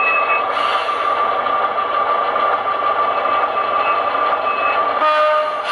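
HO-scale model diesel switcher running in reverse as it backs up to couple onto a caboose. It makes a steady running drone with a constant whine through it, and the sound changes about five seconds in.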